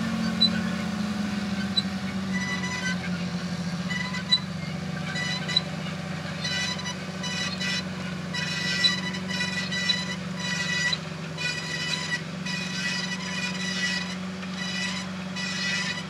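John Deere tractor engine running steadily under load as it pulls a cultivator drill through stubble. From about six seconds in, a high-pitched sound comes and goes over the engine.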